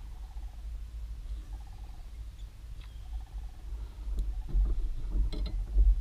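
Knocks and bumps as an angler handles his fishing rod and shifts about in a small fishing boat. They come as a cluster from about four seconds in, loudest near the end, over a steady low rumble.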